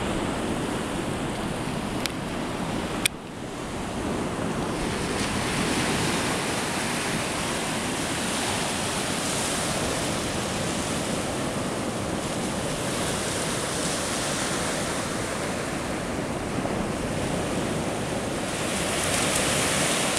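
Baltic Sea surf: small waves breaking and washing up a sandy beach in a steady rush, with wind on the microphone. Two sharp clicks about two and three seconds in.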